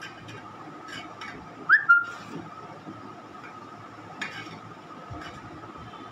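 Palette knife spreading cream onto a cake, heard as a few brief soft scrapes over a faint steady high tone. About two seconds in, a short whistle rises and holds briefly; it is the loudest sound.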